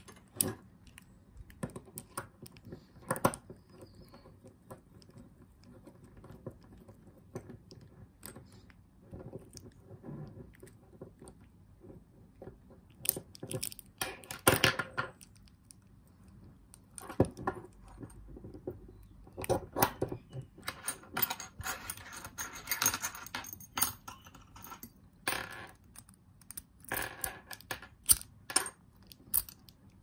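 Small metal clicks, taps and rattles of a brass Lockwood padlock, its shackle and small tools being handled on a desk while the gutted lock is reassembled, with a stretch of rustling around the middle.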